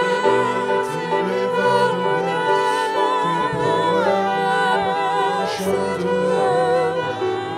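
A woman singing a slow, held melody with vibrato over a soft instrumental accompaniment.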